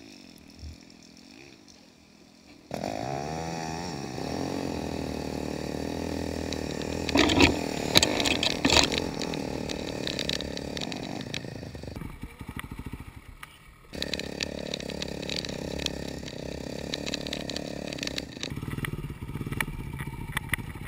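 Dirt bike engine: quiet at first, then pulling away and revving up and down as the bike rides a rough snowy trail. A cluster of sharp knocks and clatter comes about a third of the way in, and the engine drops away briefly past the middle before running on again.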